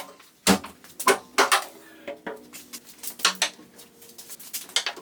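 A dozen or so irregular sharp clicks and clinks of small hard objects being handled.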